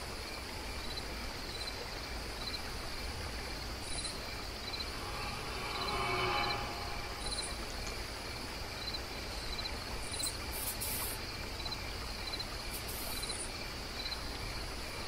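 Night ambience of crickets chirping steadily, about two chirps a second, over a low, even hiss. A faint drawn-out tone swells and fades about six seconds in.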